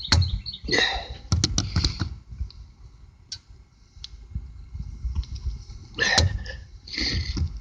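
Metal side cutters clicking and scraping against a screw head as it is gripped and worked out of a truck tire's tread, in short irregular bursts with a quick run of sharp clicks about a second and a half in.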